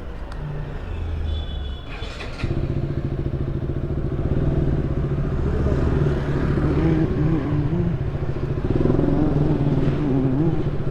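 A motorcycle engine starts about two seconds in and keeps running steadily, after some clatter and a short high beep.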